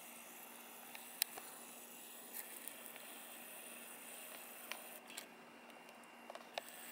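Faint steady hiss broken by several sharp clicks and ticks from handling a video camera as it zooms and pans, the sharpest about a second in.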